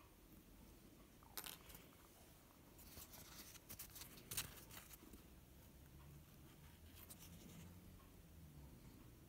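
Near silence: quiet room tone with a few faint, brief clicks, the loudest about four seconds in.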